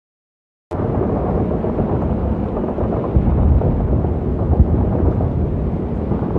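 Battle sound effect: a continuous low rumble of distant artillery fire that cuts in suddenly just under a second in, with a couple of louder thuds in the middle.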